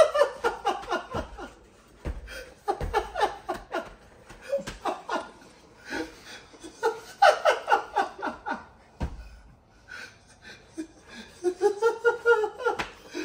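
Two young men laughing hard in several bouts, each a run of quick breathy bursts, with short quieter pauses between them.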